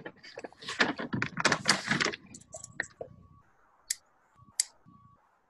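A burst of rustling and clattering lasting about two seconds, then quieter noise and two sharp clicks, heard over a video call's audio.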